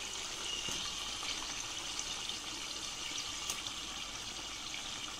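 Raw chicken pieces frying in hot oil with fried onions: a steady sizzle with fine crackling.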